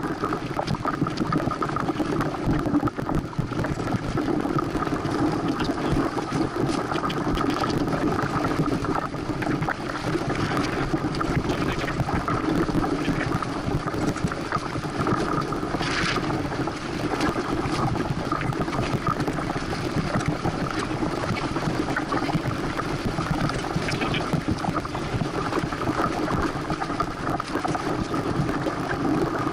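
Steady rush of wind on the microphone and water along the hull of a Santana 525 sailboat sailing at speed, with one brief sharp noise about halfway through.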